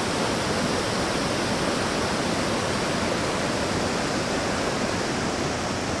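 River rapids: water rushing and tumbling steadily over low rock ledges in a constant, even roar of white noise.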